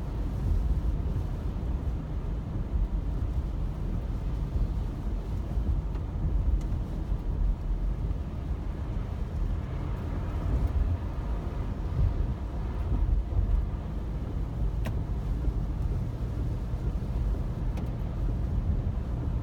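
Steady road noise inside a car driving on a rain-soaked road: a low rumble of engine and tyres with a fainter hiss of wet pavement, and an occasional light tick.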